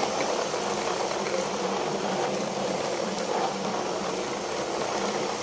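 Plastic toy trucks' wheels rolling over wet, rough concrete: a steady gritty rattle and rumble that goes on without a break.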